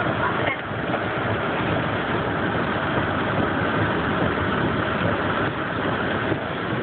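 Steady noise inside a car driving along a rain-soaked road in a storm: rain on the car and tyres on wet pavement over the running engine.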